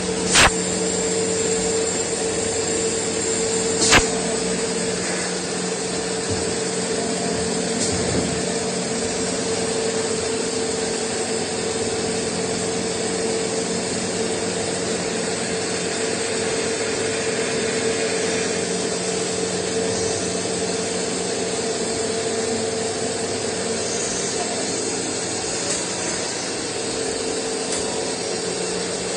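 CNC lathe running: a steady machine hum with a constant low tone and a higher tone over a hiss. A sharp click just after the start and another about four seconds in.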